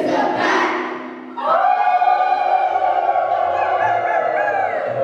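A children's choir sings over instrumental backing, then holds one long note from about a second and a half in.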